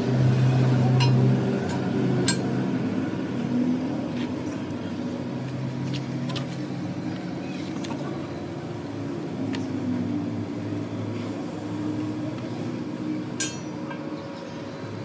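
A steady mechanical hum with scattered light metallic clinks and taps now and then.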